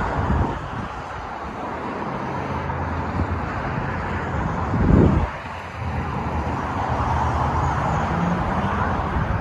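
Road traffic noise: cars running along the road beside an open parking lot, a steady rush with a low engine rumble. About halfway through there is a brief, louder low rush.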